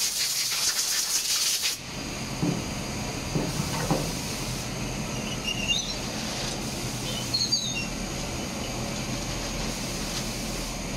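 Compressed-air blow gun hissing in a loud blast that cuts off sharply about two seconds in. It is blowing powder out of the powder-coating equipment during a colour change. Steady machine noise carries on underneath, with a few knocks and short squeaks later.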